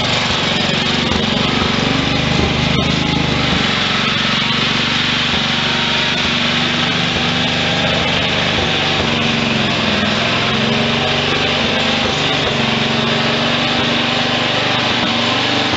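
Engine of a 1963 Wheel Horse 633 garden tractor running steadily as the tractor drives by pushing a snow dozer blade.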